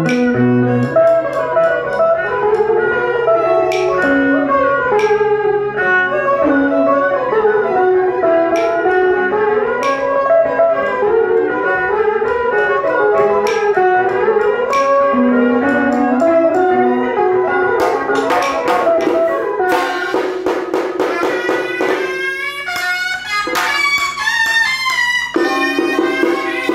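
A live Vietnamese nhạc lễ (ritual music) ensemble playing. A melody with sliding pitches runs over a held low tone, with sharp percussion strikes about once a second. About two-thirds of the way through, the strikes give way to a quick run of rapid strokes.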